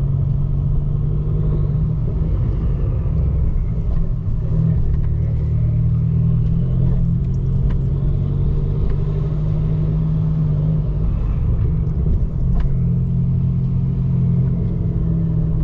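Abarth 595 Turismo's turbocharged 1.4-litre four-cylinder engine droning steadily at low revs while driving, with a faint turbo whistle rising and falling several times over it.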